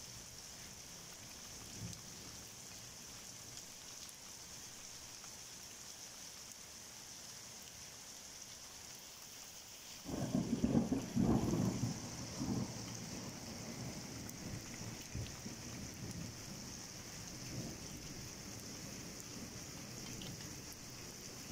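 Steady heavy rain hissing during a thunderstorm. About halfway through, a thunderclap breaks in with a loud low rumble for a couple of seconds, then rolls on more faintly under the rain.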